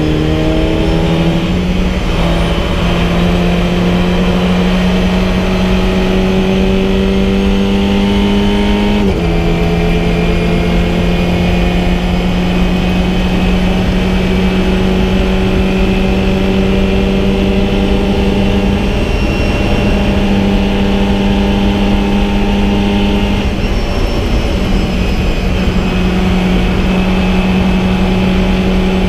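VW Fun Cup race car's engine running hard under power, heard from inside the cockpit, its note climbing slowly. The pitch drops sharply at an upshift about nine seconds in, and shifts again briefly about 24 seconds in.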